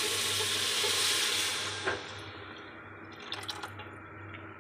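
Green chillies frying in hot oil in a metal pot sizzle as the yellow kadhi mixture is poured in; the sizzle dies away over about two seconds as the liquid covers the oil. A sharp clink about two seconds in and a few light clinks follow.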